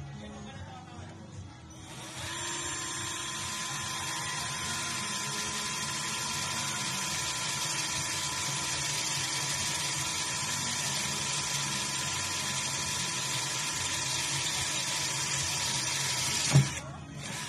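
Ingco 12 V cordless drill running steadily with a high whine as it bores into a block, starting about two seconds in. It stops near the end with a sharp knock.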